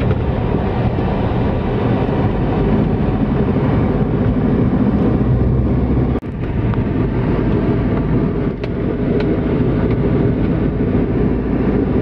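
Steady road and engine noise of a moving car heard from inside the cabin, briefly dropping out about six seconds in before continuing.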